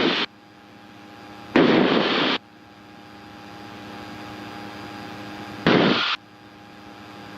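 Steady drone of a light aircraft's engine heard through the cockpit intercom, slowly growing louder. It is broken twice by short, loud bursts of radio static hiss, about one and a half seconds in and again near six seconds.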